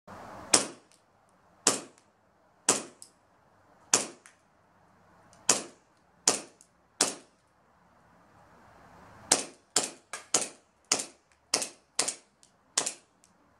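Novritsch SSP1 CO2 airsoft pistol firing about seventeen sharp shots: seven spaced about a second apart, then, after a short pause, a quicker string of about ten. The gun's CO2 is starting to run low in the cold.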